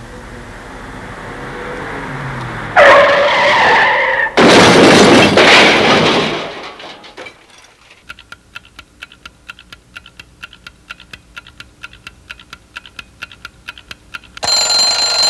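Electronic sound effects: a rush of noise that swells for about three seconds, a loud screech, then a loud blast of noise that dies away. Rapid, evenly spaced clicking follows, and a high-pitched beep sounds near the end.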